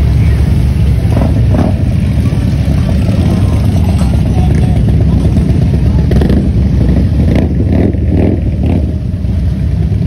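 A procession of motorcycles, mostly heavy touring bikes, riding slowly past one after another, their engines running loud and low without a break.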